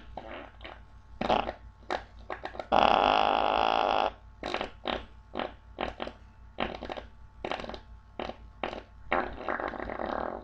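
A rapid string of fart sound effects: many short farts in quick succession, one long, loud buzzing fart lasting over a second about three seconds in, and a longer drawn-out one near the end.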